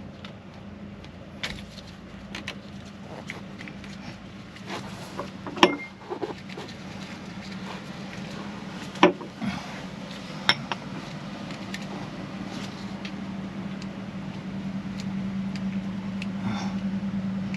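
Scattered sharp clicks and light knocks of hands and metal parts at the raw-water pump of a stopped Volvo Penta MD2040 diesel as its impeller is refitted, with two louder clicks about five and nine seconds in. Under them runs a steady low hum that grows louder near the end.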